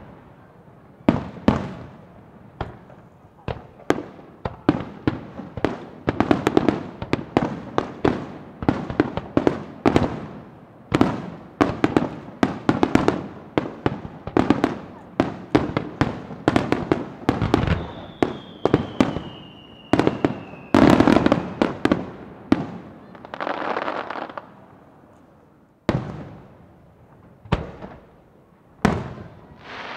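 Japanese aerial firework shells bursting in quick succession, many sharp bangs overlapping into a dense barrage that thins out near the end. Partway through, a whistle falls slowly in pitch over about three seconds, and a short hiss follows a little later.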